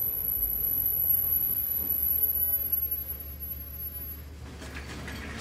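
A delivery truck's engine running with a low rumble as it pulls up and stops, louder in the first couple of seconds and easing off after that.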